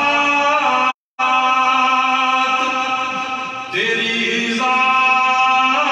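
A man's voice singing a naat (Urdu devotional poem) into a microphone, holding long drawn-out notes. About a second in, the sound cuts out completely for a split second, then the singing resumes.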